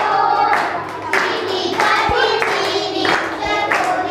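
A group of children singing a Hindi film song together while clapping hands in a steady rhythm, about two claps a second.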